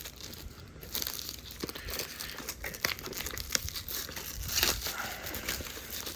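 Packaging of a VHS tape being unwrapped by hand: irregular crinkling with some tearing, loudest a little after the middle.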